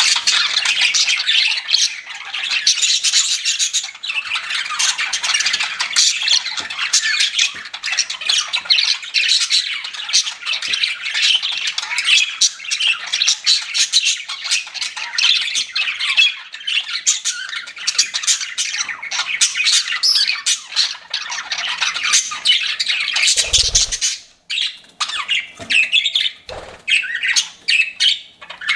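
Pet budgies (budgerigars) chirping and chattering, a dense, continuous stream of rapid high chirps. About 23 seconds in there is a low thump, after which the chirping briefly thins out before picking up again.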